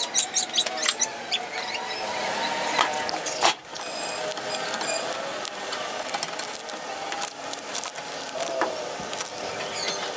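Hand work on a washing machine's casing: irregular clicks, knocks and rattles of a screwdriver and loose plastic and metal parts, with short squeaks.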